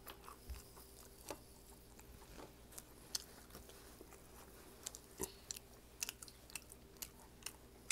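Close-up eating sounds of someone chewing and biting crispy fried food: faint, scattered sharp crunches, coming closer together in the second half.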